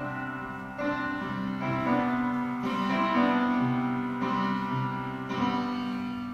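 Instrumental music: slow, held keyboard-like chords, a new chord struck about every second or so.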